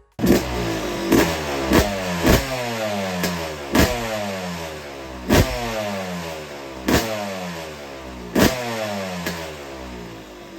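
Yamaha YZ250 two-stroke motocross engine being revved in repeated blips, the pitch dropping away after each one, with sharp cracks at several of the rev peaks.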